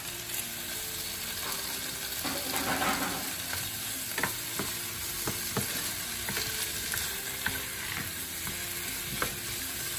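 Mushrooms and roasted pepper strips sautéing in butter in a nonstick skillet: a steady sizzle, with a wooden spatula stirring the vegetables and tapping against the pan a few times.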